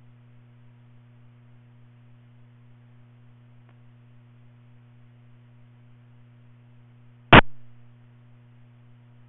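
Steady low electrical hum, with a faint tick about four seconds in and one sharp, loud click about seven seconds in that dies away within half a second.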